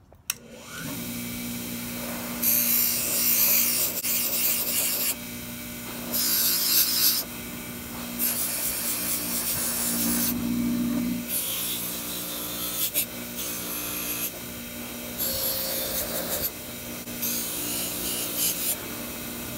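Bench grinder switched on with a click, its motor then humming steadily while a wire wheel scrubs rust off a Stanley No. 5 plane iron. The blade is pressed to the wheel in about six passes of harsh scratching, each a second or two long, with the hum alone between them.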